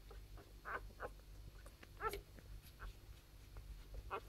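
Newborn Italian Greyhound puppies giving short, high squeaks and whimpers while they nurse, a handful of separate cries, the loudest about two seconds in.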